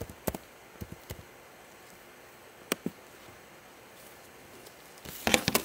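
Computer keyboard keys clicking a few at a time, then a quick run of keystrokes near the end: typing a web search.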